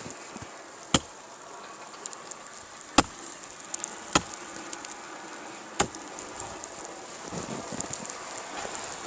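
Axe chopping into wood: four sharp blows at uneven spacing, a second or two apart, over a steady hiss.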